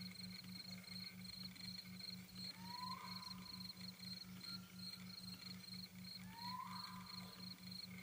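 Ambient soundscape of steady, rhythmic cricket-like chirping, a high pulse about five times a second, over a low hum that pulses in the same beat. A rising swoop sounds twice, about four seconds apart.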